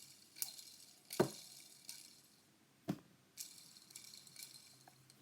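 Plastic Lego pieces clicking and rattling as they are handled, with three sharp clicks, the loudest a little over a second in, and a soft rattle after about three seconds.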